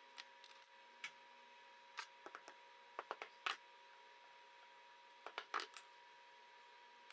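Scattered small, sharp metal clicks and taps in short clusters, from a brass bag-latch fitting and a pin punch being handled against a steel bench block. A faint steady hum lies underneath.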